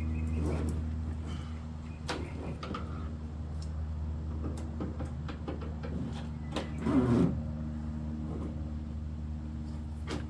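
Tent straps and buckles being handled and hooked onto a pickup's bed, with scattered clicks, knocks and rustles of tent fabric, the loudest about seven seconds in. A steady low hum runs underneath.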